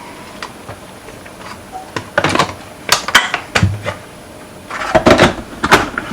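Kitchen clatter of containers and utensils being handled: a few faint taps, then from about two seconds in a string of sharp knocks and clatters that stops abruptly.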